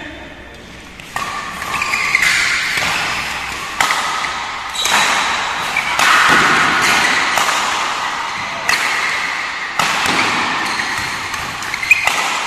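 Badminton rackets striking a shuttlecock in a rally: about eight sharp hits, roughly one every second or so, each ringing on in the echoing hall.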